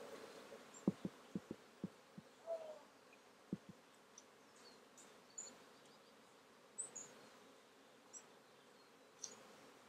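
Faint buzzing of a honey bee colony, many bees flying around their nest in a utility pole. Several short low thumps come between about one and four seconds in, and a few brief high chirps are heard later.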